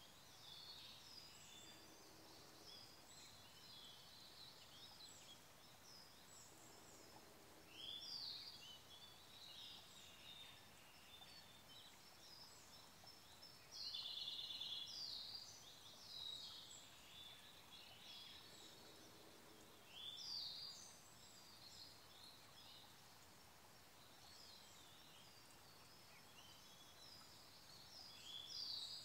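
Quiet forest birdsong over a faint steady stream: Siberian blue robin song, loud phrases that rise and break into a fast trill about every six seconds, amid continuous high twittering. A faint low call comes three times.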